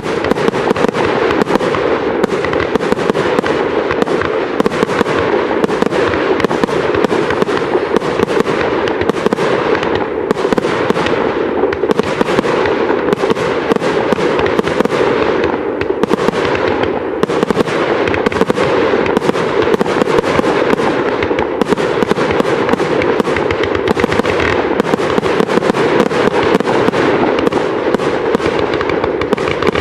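Professional aerial fireworks display: shells bursting in quick, continuous succession, with no break.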